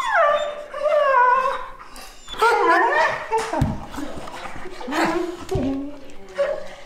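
Two dogs, a golden retriever and a long-haired black-and-white dog, play-fighting, with a string of loud whining cries that slide down in pitch and a few sharp snaps between them.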